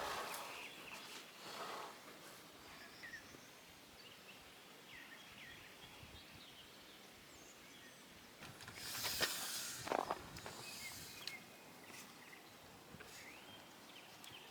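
Quiet outdoor ambience with scattered faint bird chirps, and a brief rustle or scrape with a click about nine to ten seconds in.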